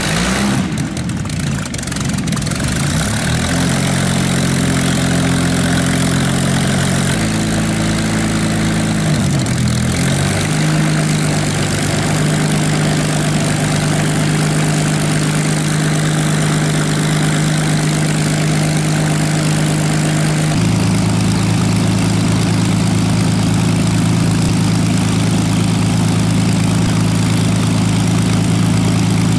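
Spitfire Mk XVI's Packard-built Merlin V12 and propeller running on the ground during an engine test, ragged for the first couple of seconds after starting, then settling into a steady run. Its speed changes in steps a few times, at about seven, ten and twenty seconds in.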